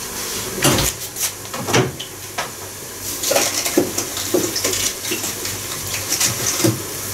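Kitchen sounds: a steady hiss with scattered clinks and knocks of dishes and pans.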